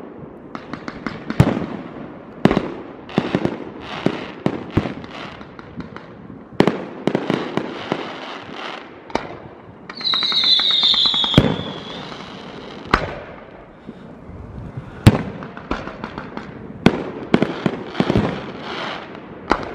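Fireworks display with aerial shells going up and bursting in a string of loud, irregular bangs and bursts of crackling. About ten seconds in, a high whistle slides down in pitch for about a second and a half.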